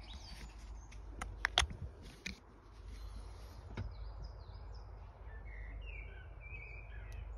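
Birds chirping and singing outside in short, quick phrases, with a few sharp clicks about a second and a half in, over a steady low background rumble.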